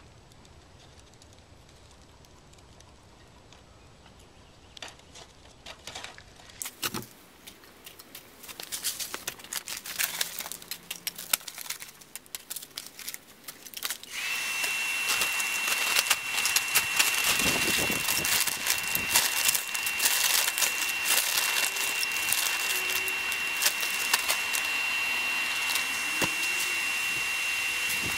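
Wood kindling crackling and snapping as it catches in a cinder-block charcoal forge. About 14 seconds in, a hair dryer blowing air into the forge's air pipe comes on: a steady high whine and rush of air, with the fire still crackling over it.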